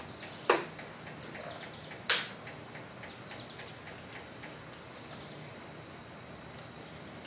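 Two sharp clicks, about half a second and two seconds in, on a first attempt to start a freshly rebuilt Honda Ruckus scooter; the engine does not fire. A steady high-pitched whine runs underneath.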